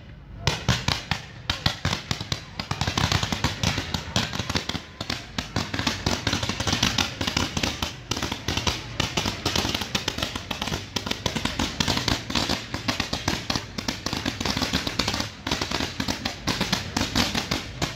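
Low-noise display fireworks firing in rapid succession: a dense, continuous stream of sharp pops and crackles that starts about half a second in.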